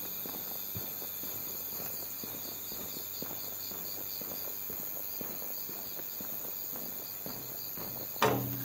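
Insects chirping steadily in a high, finely pulsing night chorus, with the soft taps of footsteps walking along the platform. A single sudden loud knock comes near the end.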